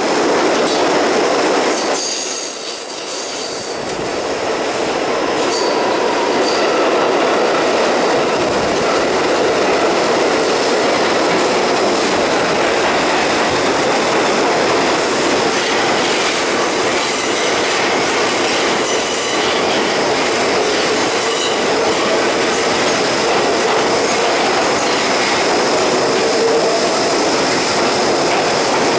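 R62A subway train running at speed, with a steady loud noise of wheels on rail throughout. A high-pitched wheel squeal rises about two seconds in and fades after about two seconds, and a fainter high whine comes in later.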